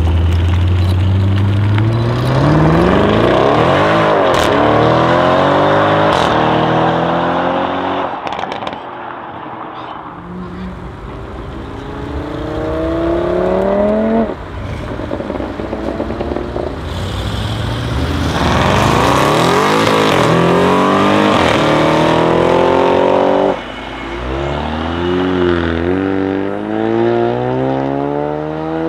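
Audi RS6 C7 twin-turbo V8s with Milltek exhausts accelerating hard, one after another. There are four loud pulls, each with the engine note climbing steeply through the revs. The second and third each cut off suddenly.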